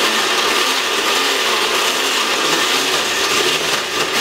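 Cuisinart countertop blender running steadily, puréeing broiled tomatoes into a liquid.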